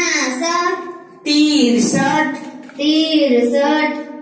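A child's voice singing a Hindi counting rhyme for the numbers 61 to 70, in three sustained phrases with short breaks between them.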